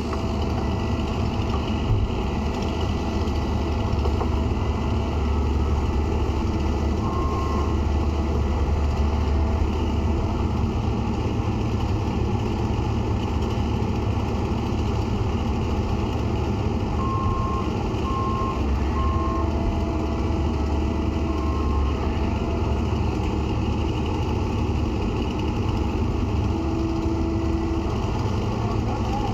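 Diesel engine of an excavator running steadily, its low rumble swelling twice as it works harder. A few short high beeps sound, mostly about two-thirds of the way through.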